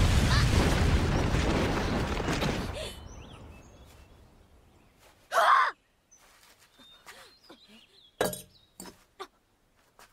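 Anime sound effect of a blast with a burst of smoke: a loud rushing noise that fades out over about three seconds. After it comes a short, sharp sound about five and a half seconds in and a few faint ticks near the end.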